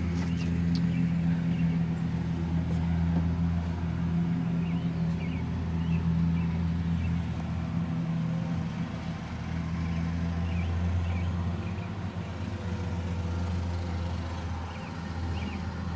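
A motor or engine running steadily with a low hum, joined by a few faint high chirps and some light clicks in the first second.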